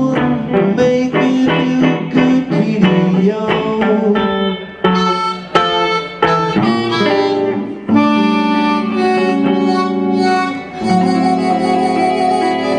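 Blues guitar and harmonica: a hollow-body electric guitar plays a steady rhythm of chords, and about four seconds in a harmonica, cupped against a microphone, joins with long held notes over it.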